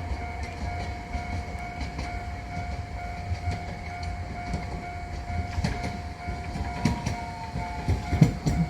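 Railroad crossing warning signal sounding in an even repeated beat while a train runs over the rails, wheels clicking over the joints, the clicks coming thicker toward the end, with a whine falling in pitch near the end.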